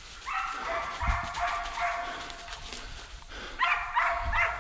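Deer-hunting dogs baying and barking in a series of calls. A first run fills the first half, then there is a short lull and a second, louder burst near the end.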